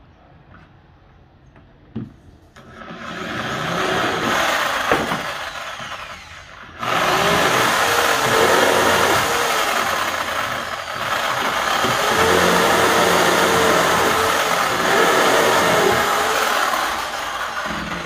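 Corded electric drill boring into a thick wooden plank. The motor runs up about three seconds in and eases off, then starts again sharply about seven seconds in and runs hard until near the end, its pitch wavering as the bit works through the wood.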